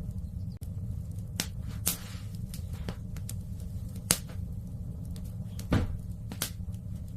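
Fireplace fire crackling, with a handful of sharp, irregular pops over a steady low rumble; the loudest pops come about four seconds and about six seconds in.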